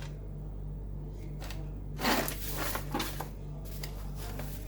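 Small household objects being handled, with a burst of rustling and light clattering about two seconds in that lasts under two seconds. A steady low hum sits underneath throughout.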